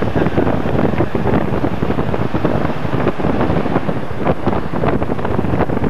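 Loud, steady rumbling wind buffeting the camcorder microphone, flickering irregularly throughout.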